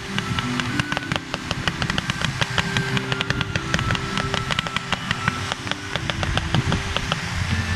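Consumer fireworks firing: a dense run of sharp pops and crackles from aerial shots bursting into crackling stars, over the steady hiss of ground fountains.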